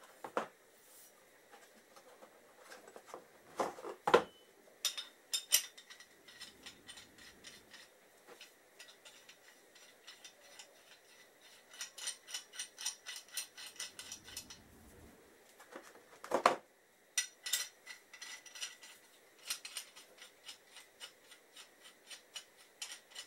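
Metal parts of a valve spring compressor kit being handled and fitted together: runs of quick metallic clicks and clinks, broken by a few sharper knocks.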